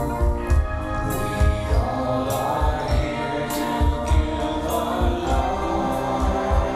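Rock song playing: a steady drum beat with cymbal hits under sustained, choir-like sung harmonies.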